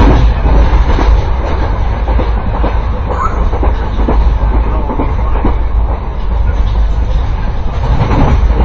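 A moving passenger train heard from inside the coach: a loud, steady low rumble, with scattered knocks from the wheels and the carriage.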